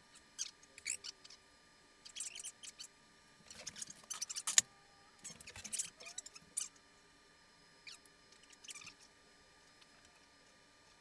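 Scattered small clicks and crinkly rustles of hands and utensils at work while icing cupcakes, with one sharper click about four and a half seconds in.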